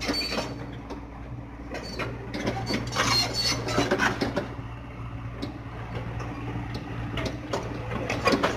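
Hyundai excavator's diesel engine running steadily while working, with irregular metallic clanks and knocks from the machine over the hum.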